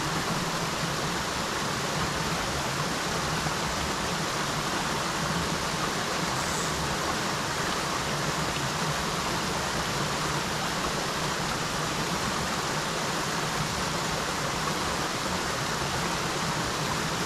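Small mountain creek's water rushing steadily, an even, unbroken sound of flowing water.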